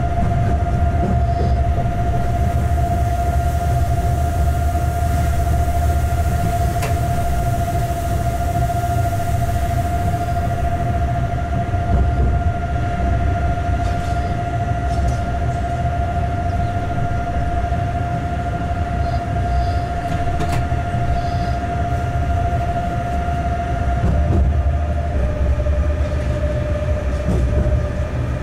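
Inside the cab of a locomotive running light along the track: a steady low rumble with a constant whine that steps down a little in pitch about 25 seconds in, and a few faint clicks.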